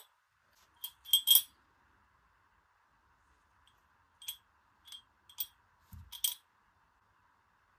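Light clinks and taps of small hard objects being handled, with a short ring to some of them: a cluster about a second in, then single taps spaced through the second half, one with a dull thud about six seconds in, over a faint steady hiss.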